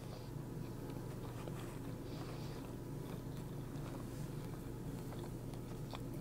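Close-up chewing of crispy fried chicken, with small soft crunches and mouth clicks over a steady low hum.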